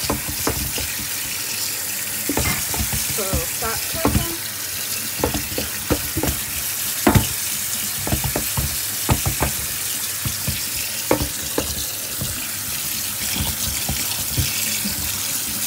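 Kitchen tap running cold water over cooked macaroni in a colander in the sink, with scattered knocks and clatters, to cool the pasta and stop it cooking.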